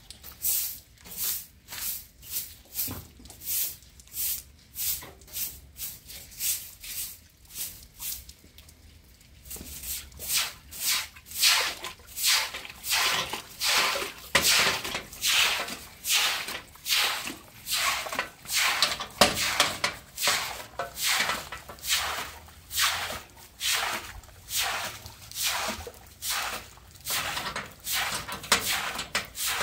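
Straw hand broom sweeping, short swishing strokes a little under two a second in a steady rhythm, with a pause of about a second and a half around eight seconds in.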